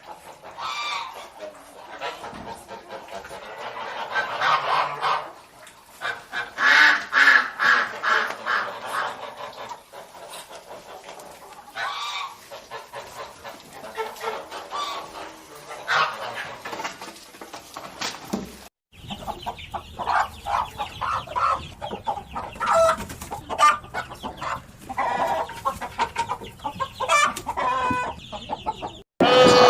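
Chickens clucking and calling in short, repeated bursts. About two-thirds through, the sound cuts to another clip of fowl calls over a steady low hum.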